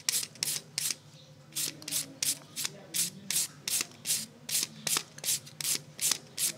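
A carrot grated on a plastic grater with metal shredding blades: rhythmic scraping strokes, about three a second, with a short pause about a second in.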